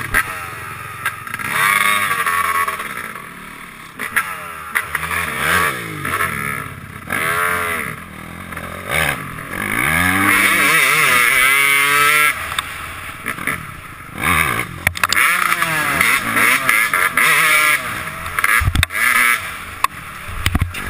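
Dirt bike engine revving hard, heard close from a helmet camera. The pitch climbs and drops again and again as the rider opens and closes the throttle, with a longer run held at high revs about halfway through.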